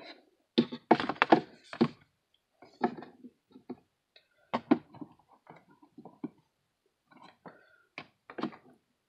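Irregular knocks, taps and thunks of small hard objects being handled, in several short clusters with pauses between, the loudest cluster about a second in.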